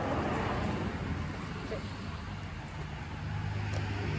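A motor engine running with a steady low hum that grows louder over the last second or so.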